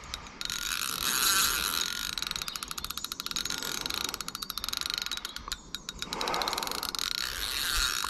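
A carp fishing reel's drag clicking in a rapid, continuous run as a hooked carp pulls line off hard. The clicking lulls briefly about five and a half seconds in, then carries on.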